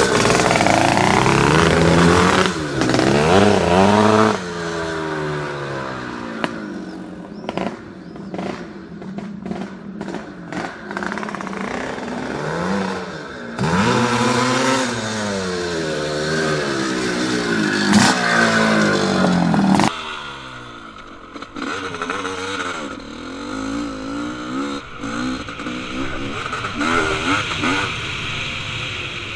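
Two-stroke dirt bike engine revving up and down repeatedly as the bike is ridden, its pitch climbing and dropping with each throttle change. The sound changes abruptly about four seconds in and again about twenty seconds in, and is quieter after the second change.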